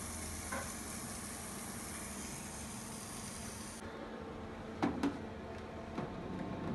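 Filtered water running steadily from a countertop water filter's spout into a plastic reservoir tank, a filling hiss that cuts off abruptly after about four seconds. Then a few light plastic knocks, two close together and one a second later, as the tank is set onto the Keurig Kold machine.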